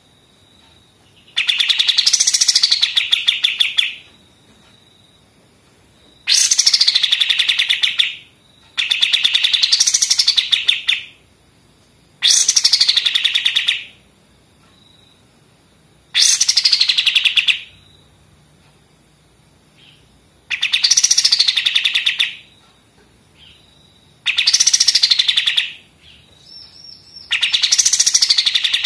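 A kapas tembak singing its fast, rattling 'machine-gun' song: about eight bursts of roughly two seconds each, every one a dense rapid run of high notes, with short pauses between them.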